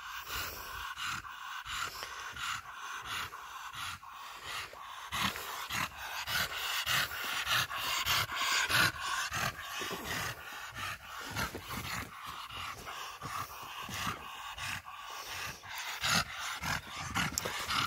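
Pocket bully dog panting, a quick rhythmic run of breaths through the open mouth.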